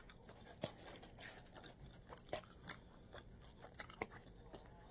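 Close-up chewing of creamy chicken fettuccine alfredo: soft, wet mouth clicks and smacks scattered irregularly, a few louder ones in the first three seconds.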